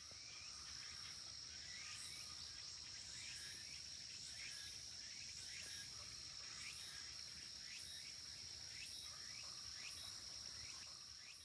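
Faint outdoor insect sound: one steady high-pitched whine, with a short chirp repeating unevenly about once or twice a second.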